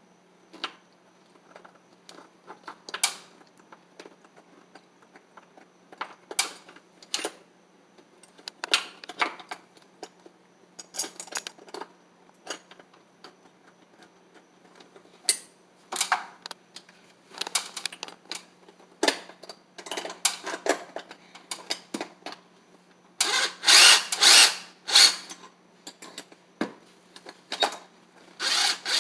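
Scattered clicks and knocks of blind mounting parts being handled and fitted at the top of a window frame. About 23 seconds in, a cordless drill runs in short, louder bursts as it drives into the frame.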